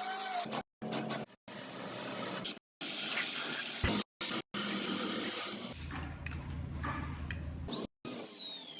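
Woodworking tool noise on wood in short clips, each cut off abruptly, with a steady low motor hum for about two seconds near the end.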